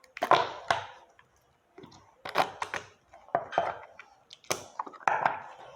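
Glitter slime being pressed and worked by hand into a small plastic pot: a string of short, irregular wet clicks and squishes.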